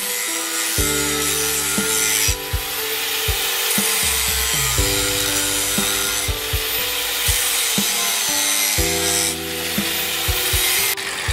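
Electric angle grinder cutting through a steel bicycle tube with a cutting disc: a steady high grinding hiss of the disc biting the metal, swelling and easing a few times as the cut goes on.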